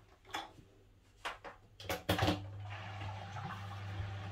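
A few clicks as the valve levers on the Aquael Ultramax 1000 canister filter are handled. About two seconds in, its pump starts with a steady hum and water rushing through the hoses: the filter self-primes straight away, with no need for the priming pump.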